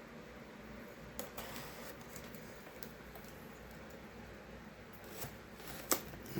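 Quiet handling of a cardboard shipping box and its packaging as it is opened: a few light taps and rustles, with a sharper click near the end.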